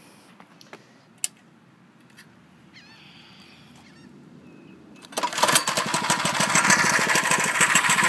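A mini bike's small 99cc engine being started: after a few quiet seconds and a single click, it catches abruptly about five seconds in and keeps running with a rapid, even putter.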